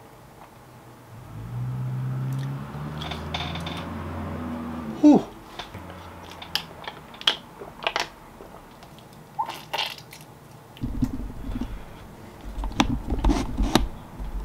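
A man chewing a crunchy fried fish nugget with a low hummed "mmm", then gulping a drink from a glass around the middle. Low knocks and handling noise near the end.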